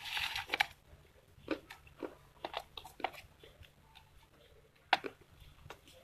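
Dry baked clay being broken and chewed: a loud crackling crunch right at the start, then scattered short, sharp crunches, with one more near the end.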